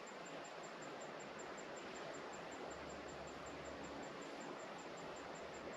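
Faint, steady outdoor ambience at a creek: an even hiss with no distinct events.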